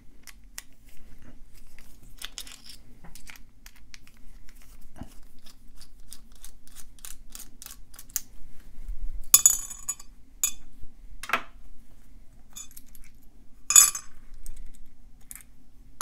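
Small metallic ticks and scrapes of a precision screwdriver backing out a Phillips screw inside a hardened steel padlock's shackle hole. In the second half there are three sharper metal clinks as the lock's steel parts are handled and set down.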